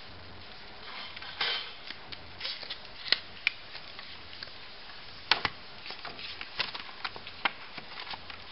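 Paper booklets and leaflets from a mouse box being handled and shuffled: short rustles and scattered sharp clicks, the loudest clicks about three and five seconds in.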